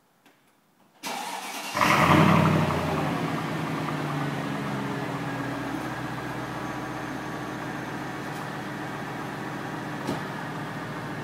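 Mercedes-Benz S55 AMG's supercharged V8 being started. The starter cranks briefly about a second in, the engine catches with a loud flare of revs, then settles into a steady idle.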